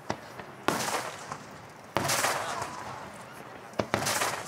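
Aerial firework shells bursting: about five sharp booms spaced irregularly, each trailing off into a fading rumble over the next second or so.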